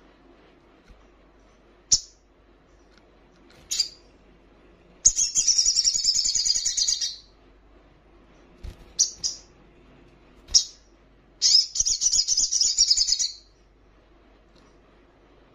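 Olive-backed sunbird calling: a few sharp, high single chirps and, twice, a rapid high trilled song lasting about two seconds.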